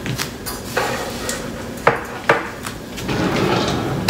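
Kitchen utensils and cookware being handled on the counter: a few sharp knocks and clinks, the two clearest close together about two seconds in.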